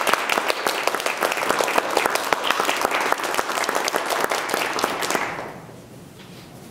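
Audience applauding, then dying away about five seconds in.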